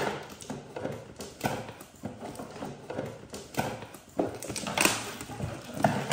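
Scissors slitting the packing tape on a cardboard shipping box, with the cardboard being pressed and a flap lifted: irregular scrapes, taps and knocks.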